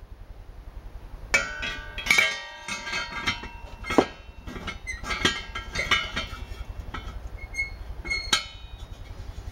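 Metal clinks and knocks as the small fittings of a jet-engine afterburner torch igniter are handled and fitted against the igniter body by hand. The clinks are irregular, the sharpest about four seconds in, with a brief metallic ring after the knocks early on.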